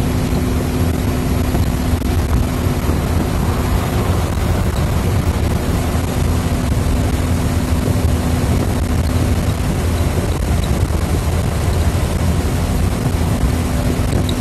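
Car driving at highway speed, heard from inside the cabin: steady road and wind noise with a low drone from tyres and engine.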